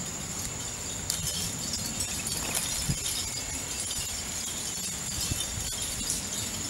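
Backyard ambience: a steady high-pitched whine over a low rumble, with a few soft clicks as a blue jay handles peanuts and hops on a wooden tray feeder.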